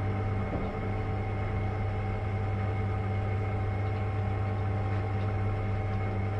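Home-brewery pumps running with a steady electric hum during the sparge through a HERMS coil. The brewer says they aren't pumping very well and suspects a bit of air in the system.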